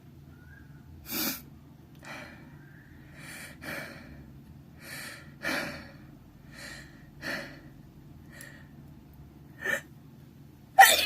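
A person's sharp, gasping inhalations, about nine of them spaced a second or so apart, building up to a sneeze. The sneeze breaks out loudly near the end.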